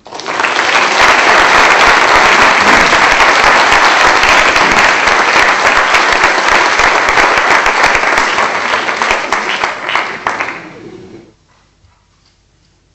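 An audience applauding: dense clapping that starts at once, then thins out and dies away about eleven seconds in.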